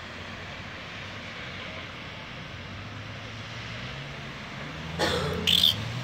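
Steady rushing noise of a blizzard over a street, with a vehicle's engine drone building from about halfway through. About five seconds in come two short, sharp, loud sounds, the loudest part.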